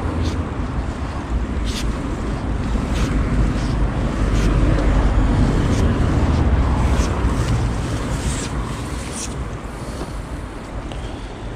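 Steady rush of a swollen, fast-flowing river, with wind buffeting the microphone as a low rumble. Short clicks and rustles are scattered throughout.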